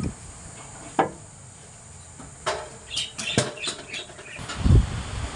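Scattered sharp clicks and knocks of metal tools and the just-removed oil filter being handled under a pickup truck, a quick cluster of them past the middle, then a dull low thump near the end.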